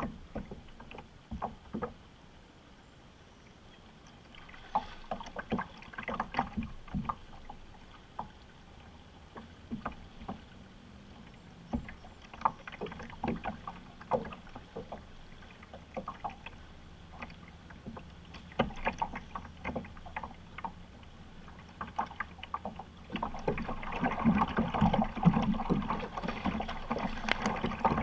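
Water lapping against a small inflatable fishing boat, with scattered knocks and clicks from the boat and fishing tackle being handled. The noise grows louder and denser over the last few seconds.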